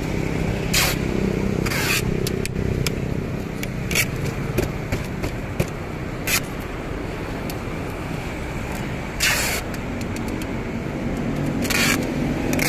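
Brown packing tape being pulled off its roll in several short screeching strips and pressed onto a cardboard box, with small crackles and taps between pulls. A steady vehicle rumble runs underneath.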